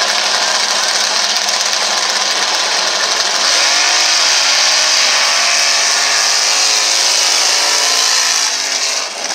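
Two mud-racing trucks' engines running at high revs at full throttle, getting louder about three and a half seconds in with pitch swings as they launch down the mud track.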